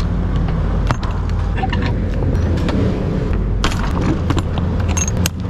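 Metal clanks and rattles of a lorry trailer's rear-door locking bar being swung over and latched by hand, several sharp knocks scattered through. Under them runs the steady low hum of the truck's diesel engine idling.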